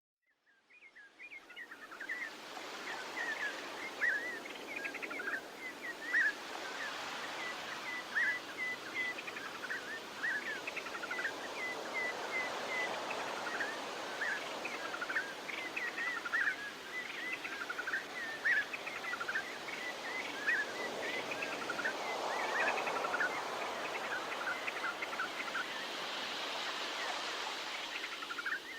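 Small birds chirping and twittering continuously over a steady rushing background, which swells twice near the end; the sound fades in over the first couple of seconds.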